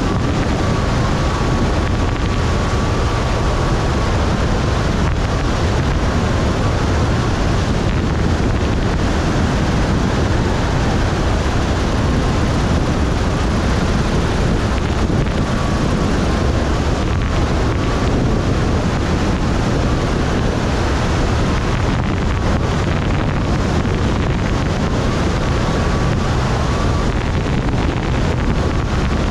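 Cessna 172's piston engine and propeller running steadily on landing approach, mixed with heavy wind rush on the microphone.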